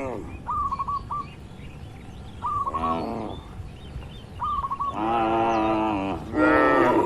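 Cattle mooing in short calls, three times in the second half, while a bird repeats a quick phrase of four or five chirps about every two seconds.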